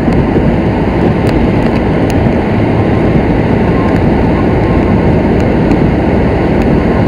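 Loud, steady rumbling noise with no clear pitch or beat, from an experimental computer-composed soundtrack built with New York City sounds.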